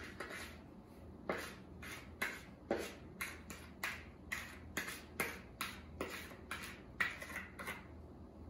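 A metal spoon scraping crumb topping out of a plastic mixing bowl onto apples, in quick strokes about twice a second that stop near the end.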